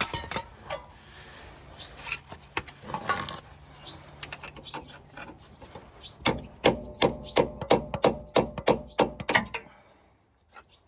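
A heavy framing hammer striking a flathead screwdriver against a seized CV joint housing to drive it out of the power transfer unit: a few scattered knocks, then from about six seconds in a quick run of ringing metal strikes, about four a second, that stops a little before the end.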